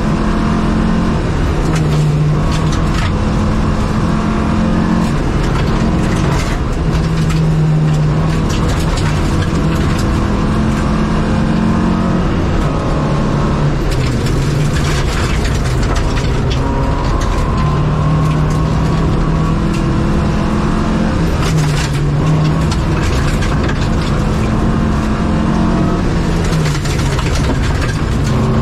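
Opel Kadett rally car's four-cylinder engine at hard throttle, heard from inside the cabin, its pitch climbing and dropping back again and again as the driver shifts and lifts. Gravel rattles and knocks against the underbody throughout, with clusters of sharper hits.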